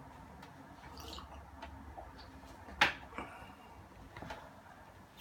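Faint rustling and small ticks, then a single sharp knock a little past the middle with a brief ringing after it: a ceramic mug set down on a desk.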